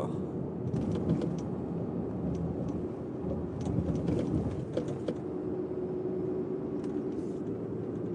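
Car cabin road noise while driving on a bumpy road: a steady low rumble with scattered sharp clicks and knocks over the first few seconds. A steady hum settles in about five seconds in.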